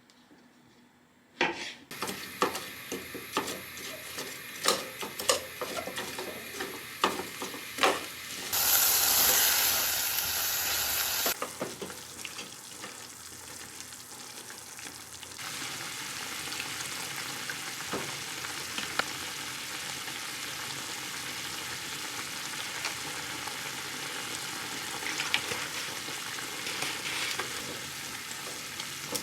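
Cooking in a pan: utensils clinking and knocking for several seconds, then a loud hiss lasting about three seconds, followed by a steady frying sizzle.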